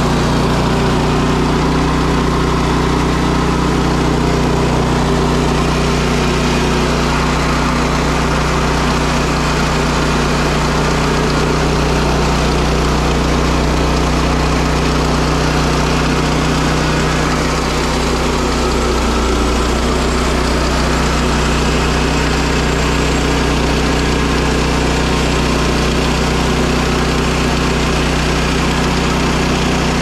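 The Kohler Command PRO engine of a Woodland Mills portable band sawmill running steadily while the band blade cuts lengthwise through a log.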